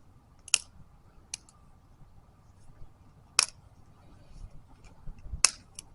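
Dry sticks and twigs giving a few short, sharp cracks and clicks as they are handled and piled for a campfire, the loudest about three and a half seconds in and another near the end.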